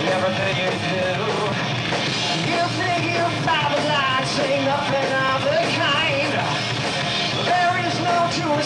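Heavy metal band playing live: distorted electric guitars, bass guitar and drum kit, steady and loud.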